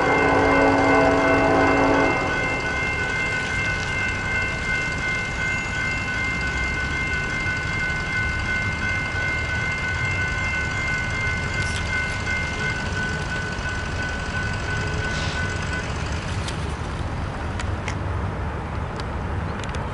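A diesel locomotive horn sounds a loud multi-note chord that stops about two seconds in. After it, grade-crossing warning bells ring steadily, then stop a little past halfway, with a low rumble underneath.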